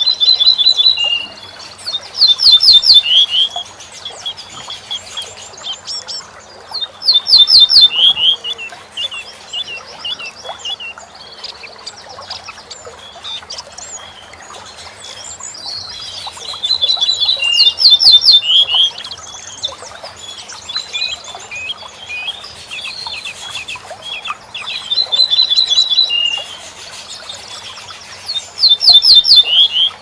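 A bunting singing loud, short song phrases a few seconds apart: runs of high, evenly repeated notes falling to a lower note, and quick series of sweeping notes. Fainter chirping of other small birds and a faint low hum run underneath.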